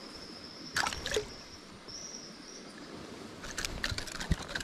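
Shallow river water splashing twice about a second in, then a few light clicks near the end, over a steady high thin tone.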